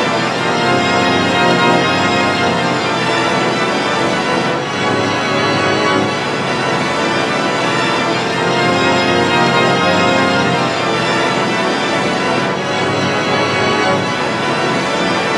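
Loud, electronically processed music of layered, organ-like sustained chords that shift a few times.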